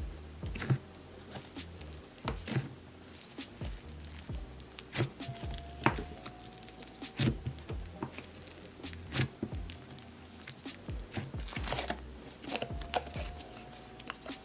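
Slime being squeezed and played with by hand, giving off irregular sharp pops and crackles as air pockets burst.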